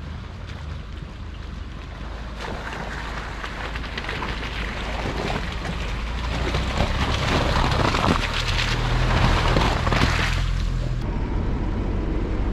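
Pickup truck engine running low as it drives through slush, ice and water on a snowy trail, the tyres crunching and splashing, getting louder as it approaches. About eleven seconds in the crunching cuts off abruptly, leaving a steady low drone of vehicle cabin noise.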